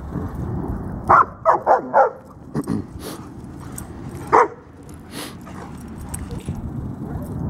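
A young female German Shepherd barking: four quick barks about a second in, then one more a few seconds later. The barking is her demand to be let into the other dogs' play.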